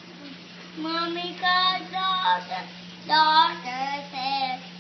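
A toddler girl's voice chanting in sing-song, a few short phrases that glide up and down in pitch, with no clear words. A steady low hum lies underneath.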